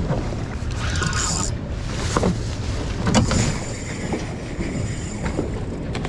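Wind buffeting the microphone aboard a small boat on open water, with a few short handling knocks about two and three seconds in.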